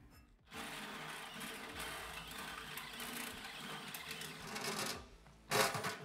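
Cordless drill boring a hole through the steel wall of a metal ammo can, the motor and bit running steadily for about four seconds, then a short, louder burst near the end.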